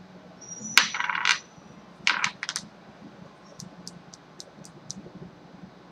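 Metal manicure tools clinking and clattering as they are handled and set down: a loud clatter with a brief high ring about a second in, a few more sharp clicks about two seconds in, then faint light ticks.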